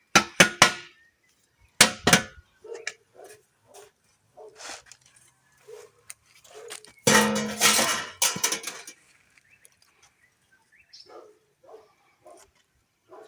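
Chickens clucking in short, repeated calls, with loud clattering knocks near the start and about two seconds in, and a longer, louder noisy clatter about seven seconds in.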